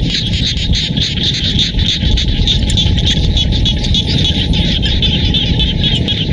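Dense chorus of frogs calling from flooded rice paddies, a continuous crowd of fast, high-pitched pulsing calls. A low, rough rumble runs underneath.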